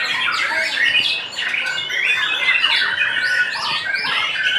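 White-rumped shama (murai batu) singing a fast, unbroken run of varied whistles and chattering notes, overlapping other caged songbirds singing at a bird-song contest.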